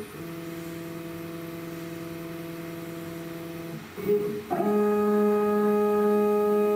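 QueenBee CNC router's stepper motors whining steadily through a homing cycle: first the Z axis raising the spindle, a brief knock about four seconds in, then the X and Y axes moving together with a louder, slightly higher whine.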